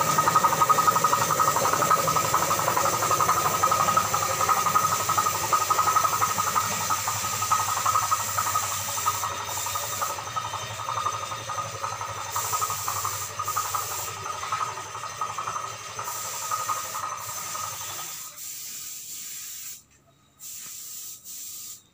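A steady hiss with a constant high hum, growing fainter and falling away about three seconds before the end.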